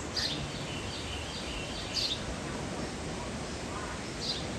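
A small bird calling in short, sharp chirps: three calls about two seconds apart, each a quick falling note followed by a few quieter stepped notes, over steady outdoor background noise.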